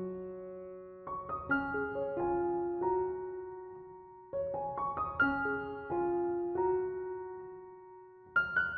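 Soft background piano music: short phrases of struck notes that ring and fade, separated by brief lulls.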